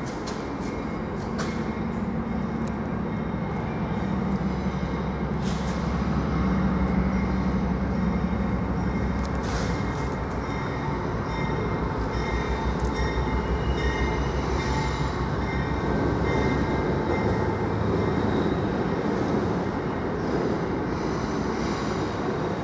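A train running on rails at a station: a steady low rumble with thin high-pitched squealing from the wheels, and a few sharp clicks.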